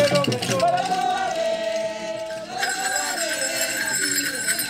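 A single voice singing a wavering melody after rattle-backed music drops away. About two and a half seconds in, a bell starts ringing steadily alongside the voice.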